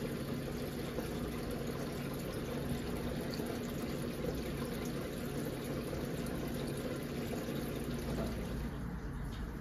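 Steady rush of running, splashing water.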